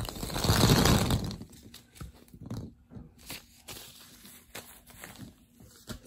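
Golf balls pouring out of a mesh bag onto a heap of golf balls: a dense clatter of balls knocking together for about a second, then scattered clicks and knocks.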